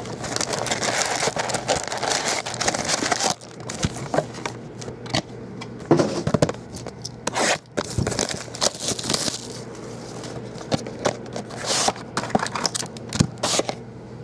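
Foil-wrapped football card packs and their cardboard hobby box being handled: crinkling of the foil wrappers and scraping of cardboard in two stretches, near the start and again midway, with scattered taps and knocks as packs are pulled out and set down on the stack.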